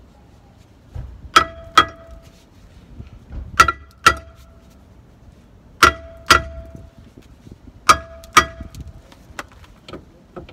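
Hammer blows on a rusted-on slotted brake rotor to knock it off the hub: eight sharp metallic clangs in four quick pairs, about two seconds apart, each with a short ring.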